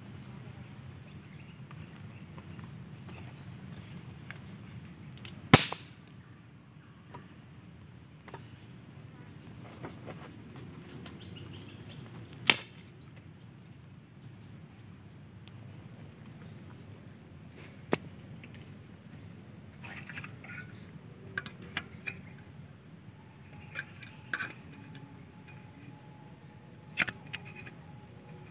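A steady, high-pitched chorus of insects trills throughout. Over it come a few sharp snaps or knocks from handling wood at a small campfire, the two loudest about five and twelve seconds in, with lighter clicks towards the end.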